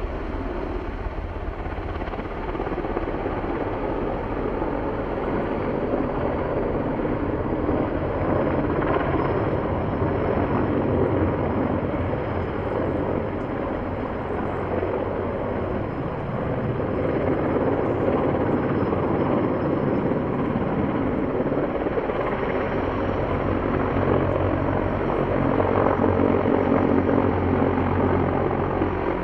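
Mil Mi-26 twin-turbine heavy-lift helicopter in flight. Its rotor and engine noise runs steadily and grows louder about halfway through and again near the end, as it passes closer.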